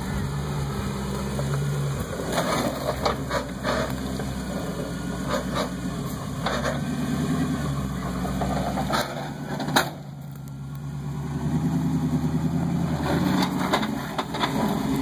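Land Rover Defender 90's engine running at low revs as the truck crawls through a deep rut, with scattered knocks and clicks over the first ten seconds. The engine note dips about ten seconds in, then picks up again a couple of seconds later.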